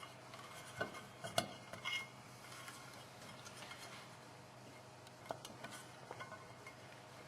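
Light metallic clinks and taps as a motorcycle stator is handled and seated into its engine cover: a few scattered taps in the first two seconds and another about five seconds in.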